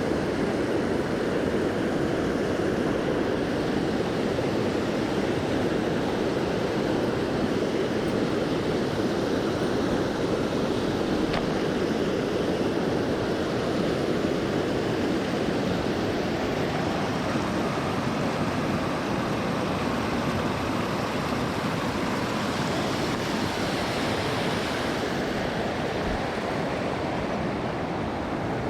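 River water rushing steadily, an even continuous noise.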